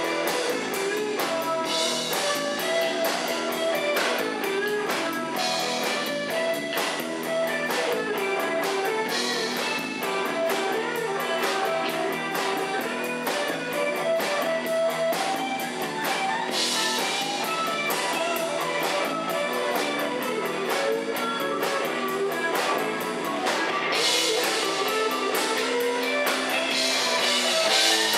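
Live blues-rock band playing: an electric guitar lead line with bent notes over a steady drum kit beat.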